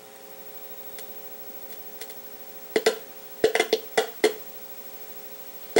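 Steady electrical hum from the radio's amplifier and speakers, with a few sharp clicks and crackles about three to four seconds in as a test lead touches the preamp chip's input pins. Only hum and clicks come through and no radio sound: no input signal is reaching the preamp.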